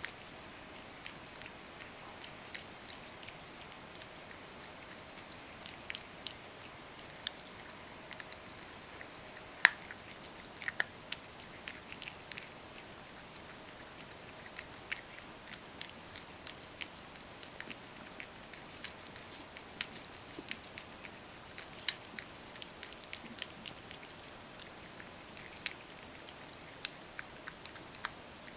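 A ragdoll cat eating softened, mashed dry cat food from a stainless-steel bowl: a run of small irregular chewing and licking clicks over a faint steady hiss, with one sharper click about ten seconds in.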